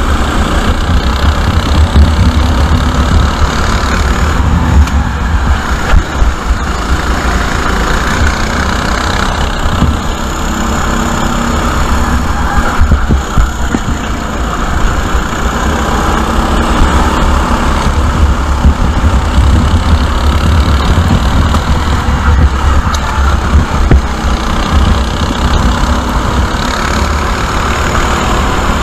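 Sodi RT8 rental kart's four-stroke engine running hard at racing speed, heard from an action camera on the kart, with a deep rumble and a loudness that wavers continually.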